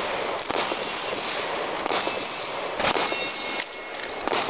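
Plastic packaging crinkling and rustling while a CAA Micro Roni pistol stabilizer is unwrapped and lifted out of its cardboard box, with a few sharp knocks from the hard plastic being handled.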